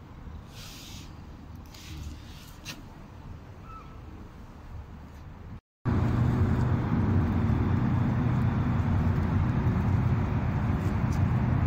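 Faint outdoor background with a few soft rustles, then, after a sudden cut about halfway through, a loud steady engine hum with a low, even drone that runs on unchanged.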